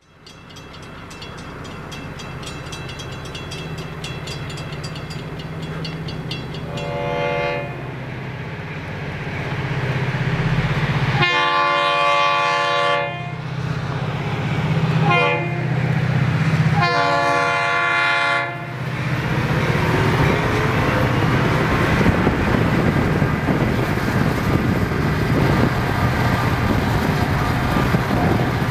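Diesel freight locomotive's horn blowing four blasts in the grade-crossing pattern, the last three long, short, long, over fast ringing of crossing-signal bells. The rumble of the locomotives and the train grows louder as it closes in and passes.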